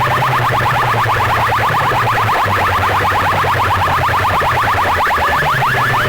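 Loudspeaker rig of a sound-competition setup playing an electronic siren effect: fast rising chirps, about ten a second, over a deep steady bass tone.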